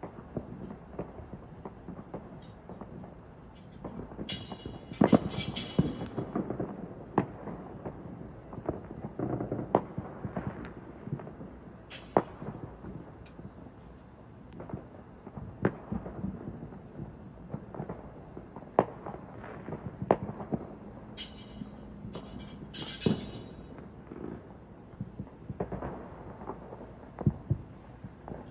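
Fireworks going off: scattered sharp bangs and pops, with two bursts of dense crackling, about four seconds in and again about twenty-one seconds in.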